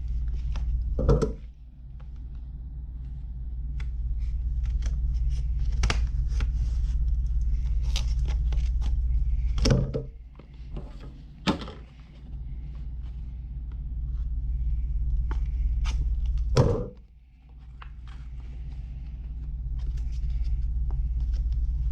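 Scattered clicks and knocks of screwdriver bits and their plastic case being handled, with three louder knocks, over a steady low hum.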